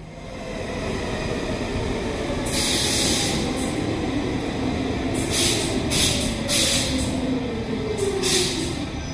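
Stockholm metro train pulling in: a rumble builds over the first few seconds, then a whine falls slowly in pitch as the train slows, with several loud bursts of hiss.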